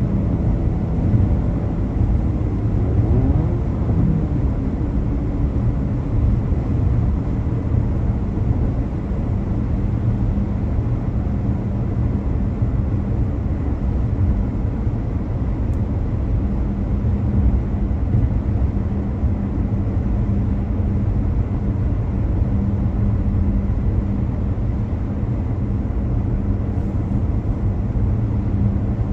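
A car driving, with steady engine hum and road noise; the hum rises briefly in pitch about three seconds in.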